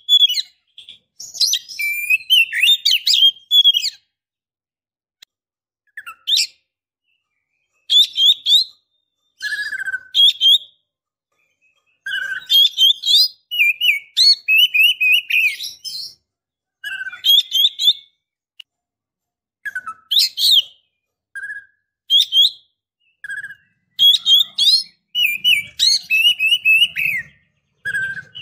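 Female oriental magpie-robin calling in its breeding-condition (birahi) call, used to lure a male. The calls come in bursts of rapid chirps and whistled trills mixed with short lower notes, with brief silent gaps between bursts.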